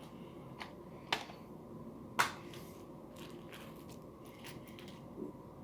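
Small metal watchmaker's tools clicking and tapping against a quartz watch movement and dial while it is being taken apart: a few sharp clicks, the loudest about two seconds in, then fainter ticks.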